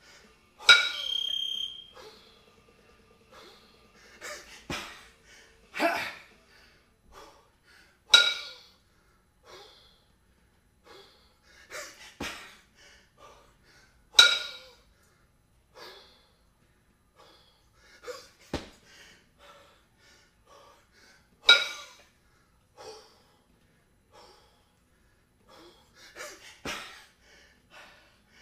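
A kettlebell lifter breathing hard through a long jerk set with two 22 kg kettlebells. A sharp, ringing clink comes about every six to seven seconds, one with each rep, with shorter forced breaths in between.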